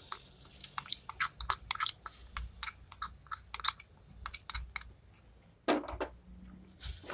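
Spoon scraping and tapping grated coconut paste out of a ceramic bowl into a clay pot of frying chili masala: a string of quick clicks and scrapes, with one louder knock near the end. A light frying hiss is heard in the first second or so and again at the very end.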